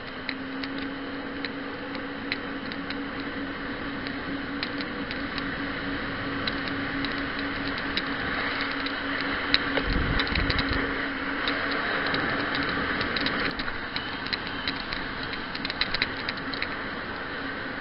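A small watercraft's engine humming steadily while riding over choppy open water, with water splashing and rushing. The rushing swells around the middle, and there is a low thud about ten seconds in. The hum stops a few seconds later while the ticking splashes go on.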